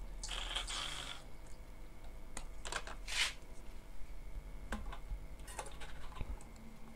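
Hands handling an Epson ink-tank printer's plastic ink damper and ink tubing: a rustling scrape in the first second, then scattered light plastic clicks and taps, with one sharper scrape about three seconds in.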